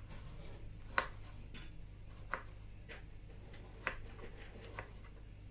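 A few separate light clinks and taps of kitchen utensils against dishes, spaced a second or so apart, over a steady low hum.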